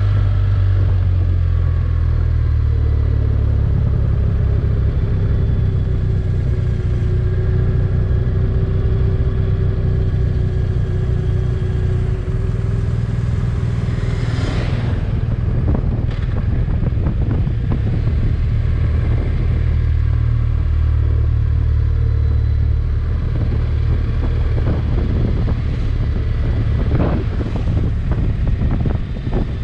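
Motorcycle engine running at a steady road speed, heard from the rider's seat with wind and road noise around it; a car passes close by about halfway through.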